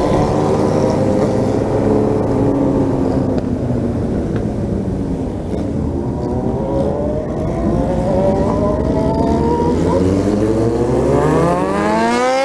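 Yamaha XJ6 inline-four motorcycle engine running through an open, de-baffled exhaust while riding. The engine note eases down early on, then climbs steadily as the bike accelerates hard over the last few seconds.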